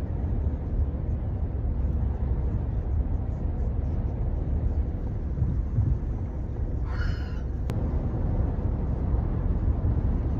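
A steady low rumble, with one short high-pitched cry about seven seconds in.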